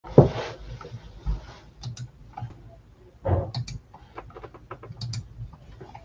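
Scattered clicks of typing on a computer keyboard, with a louder bump right at the start and a short rustle of handling noise about three seconds in.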